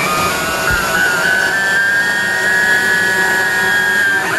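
CNC router spindle and motors running as a small bit carves a 3D relief into wood: a steady high whine that rises slightly about a second in, holds, then dips near the end.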